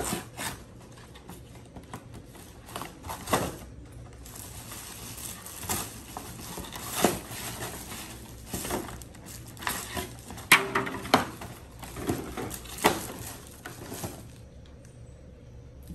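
Cardboard gift box being torn open by hand: irregular rustling and ripping, with several sharper rips.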